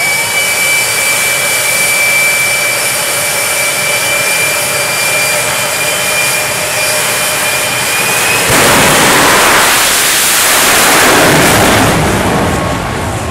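Jet engine of a jet-powered semi truck running at the line with a steady high whine. About eight and a half seconds in it goes to full thrust with a sudden loud rushing blast as the truck launches down the drag strip.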